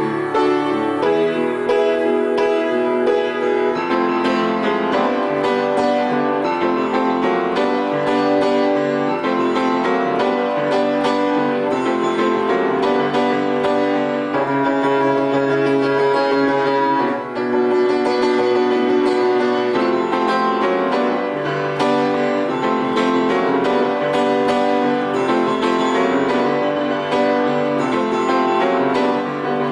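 Piano playing sustained chords, an instrumental passage of a pop song with no singing.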